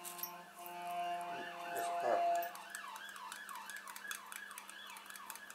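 Fire engine siren. A steady held tone in the first couple of seconds gives way to a fast yelp, rising and falling about three times a second.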